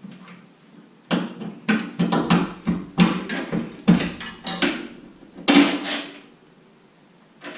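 Irregular metal clanks and knocks of hand tools and steel snow-plow mount parts being handled and fitted, starting about a second in and dying away near the end.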